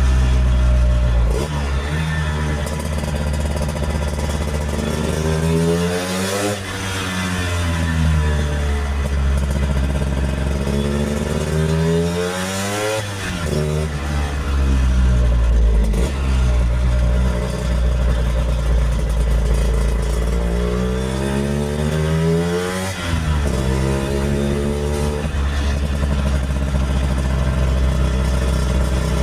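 1964 Lambretta Series 3 scooter's two-stroke single-cylinder engine under way, accelerating hard: its pitch climbs and then drops back sharply at each gear change, three times, before holding fairly steady near the end.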